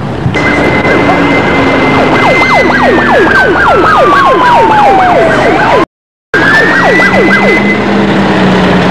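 Loud emergency-vehicle siren: a high steady tone that slides down and then rises again, over a fast yelp of about three sweeps a second. The sound cuts out for a moment about six seconds in, then the siren resumes.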